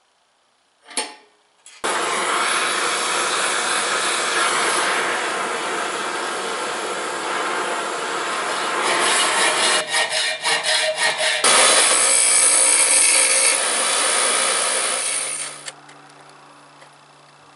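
Oxy-acetylene cutting torch flame hissing steadily as it heats a quarter-inch steel threaded rod for bending. A single sharp click comes about a second in. The hiss flutters briefly around ten seconds, runs louder for a few seconds, and stops about fifteen seconds in, leaving a faint low hum.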